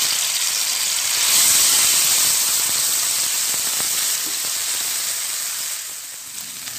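Ground chili, garlic and shallot paste sizzling in hot oil in a nonstick wok as it is stirred with a silicone spatula, the spice paste being sautéed. The sizzle swells about a second in and dies down near the end.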